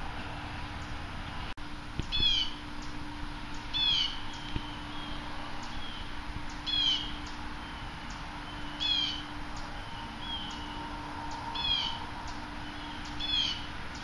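A bird calling repeatedly: short, high calls about every two seconds, with softer, shorter calls in between.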